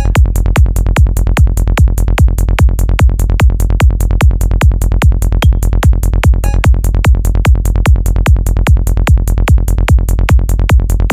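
Full-on psytrance track at 148 BPM: a steady, fast electronic kick drum and bass pulse, several hits a second, with synth layers above.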